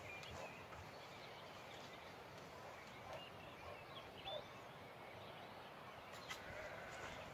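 Faint outdoor background hiss with a few short, high chirps about three to four and a half seconds in, and a couple of sharp clicks near the end.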